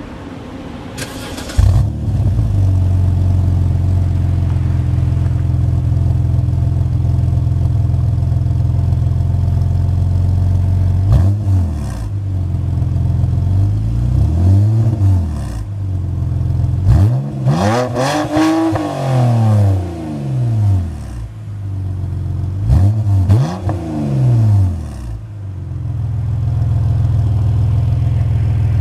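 BMW 330i's N52 inline-six through an Active Autoworke Signature muffler-replacement exhaust, warm-started. The starter cranks briefly, the engine catches with a loud flare about two seconds in and settles to a steady idle. From about eleven seconds in it is blipped several times, rising and falling, the longest and highest rev around eighteen seconds in, then drops back to idle.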